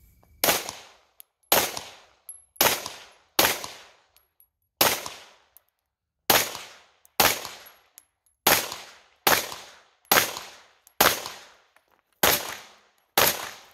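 Pistol fired thirteen times at a steady pace, roughly a second between shots, each shot trailing off in a short echo.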